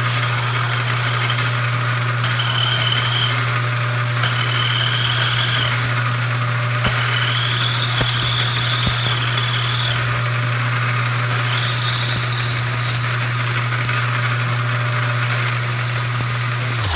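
Milling machine spindle running with a 5/8-inch end mill plunging into an aluminium block, over a steady motor hum. A high squeal from the cut comes and goes four times, each lasting one to three seconds.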